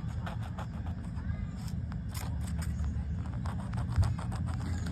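A coin scratching the coating off a scratch-off lottery ticket: a run of short, quick scrapes over a steady low hum, with a thump about four seconds in.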